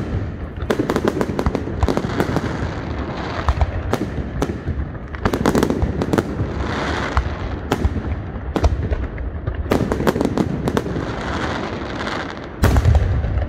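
Aerial fireworks display: shells bursting one after another with crackling and popping, and quick clusters of sharp bangs every few seconds. Near the end a heavier salvo of deep booms sets in suddenly.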